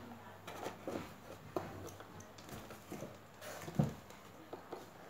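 Cats scrambling in and around an open cardboard box: scattered scrapes, taps and rustles on the cardboard, with one louder thump about four seconds in as a cat climbs into the box.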